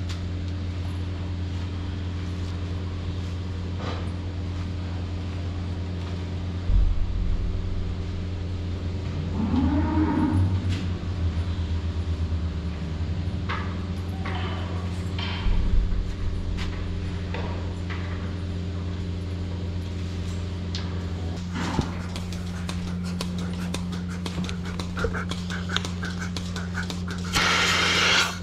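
A steady low machine hum runs throughout. A cow lows once about ten seconds in, and there are two dull thumps and a few clicks. Near the end comes a short burst of loud rustling.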